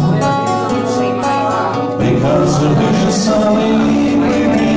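Two acoustic guitars playing a song together, with a man singing over them.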